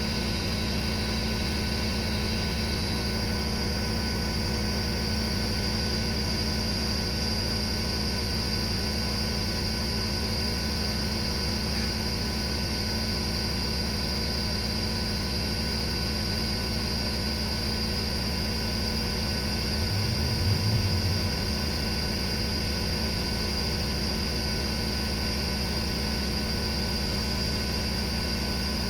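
Hotsy 4-gallon-a-minute, 4,000 psi pressure washer running steadily while a 20-inch Whirlaway surface cleaner sprays concrete, a constant hiss over the machine's drone. A brief low rumble swells about twenty seconds in.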